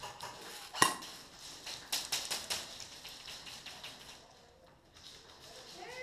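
Scattered sharp clicks and cracks of airsoft fire, shots and BBs smacking hard surfaces: one loud crack about a second in and a quick cluster of cracks around two seconds.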